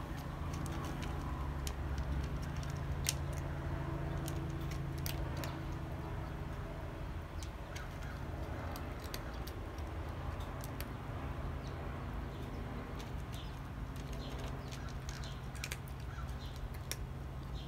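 A cat crunching dry kibble, a run of irregular sharp crunches, over a steady low hum.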